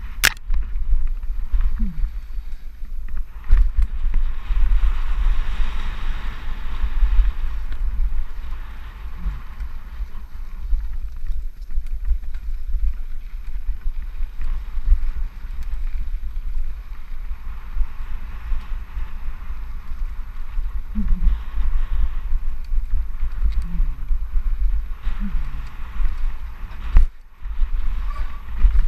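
Wind buffeting a helmet camera's microphone on a fast mountain-bike descent, a heavy continuous low rumble with the hiss of tyres on a dry dirt trail over it.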